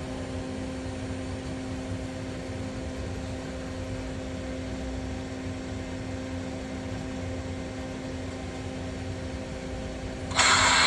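CNC Swiss lathe humming steadily with a few constant tones. Near the end its cross-drill live tools start up with a sudden, much louder high-pitched whir, spinning toward 6,000 RPM.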